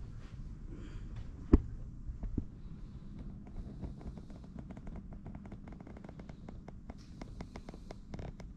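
Low rumble of handling and room noise, with one sharp knock about a second and a half in and a softer one about a second later, then a run of faint quick ticks.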